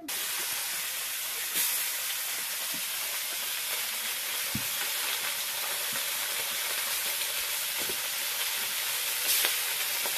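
Fish pieces frying in hot oil in an iron kadhai: a steady sizzle with a few faint ticks of spattering oil.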